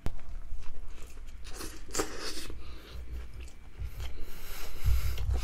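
A person biting into and chewing a folded chicken burger close to the microphone. The bites and chewing come unevenly, with louder bites about two seconds in and again near the end.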